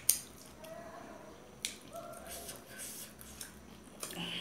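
Forks clicking against metal plates a few times, the sharpest click right at the start and another just under two seconds in, with quiet eating sounds between.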